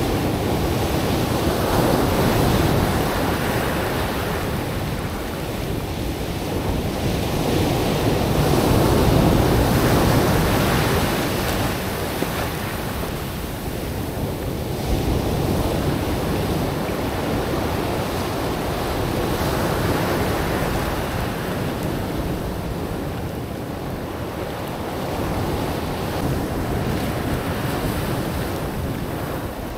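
Ocean surf breaking and washing up a black sand beach among floating chunks of glacier ice. The rush of water swells and eases every five or six seconds as each wave comes in.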